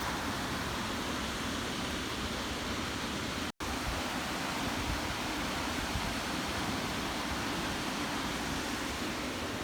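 Steady rushing of a waterfall or fast-flowing river, an even hiss with no pattern, broken by a split-second dropout about three and a half seconds in.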